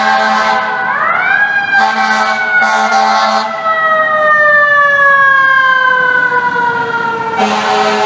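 FDNY fire engine's air horn blaring a steady chord, then its siren winding up quickly about a second in and falling slowly in pitch over several seconds. The air horn cuts back in near the end.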